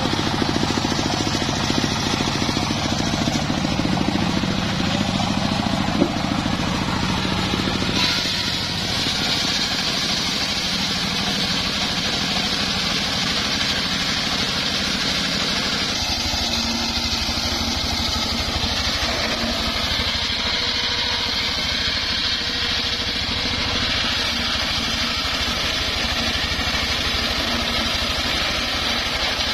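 Engine of a homemade circular sawmill running steadily. There is a single sharp click about six seconds in, and the tone changes abruptly about eight seconds in.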